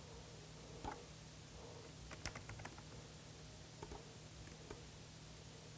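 Faint clicks of a computer mouse and keyboard, a handful scattered over a few seconds with a short cluster near the middle, over quiet room tone with a low steady hum.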